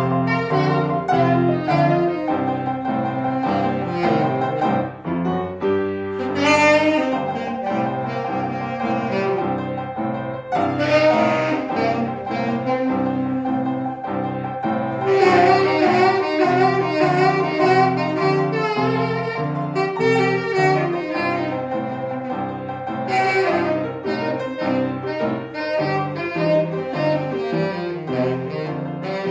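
Instrumental blues: a saxophone plays a lead line over a stepping bass line and keys, with drum cymbals coming in several times.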